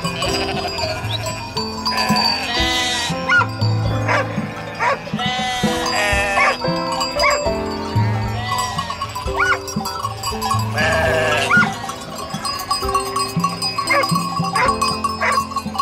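Sheep bleating several times, in quavering, wavering calls, over background music.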